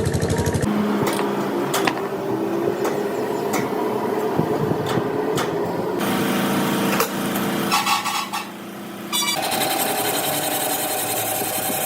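Workshop machine and tool noise: a steady machine hum with scattered sharp knocks, changing abruptly several times.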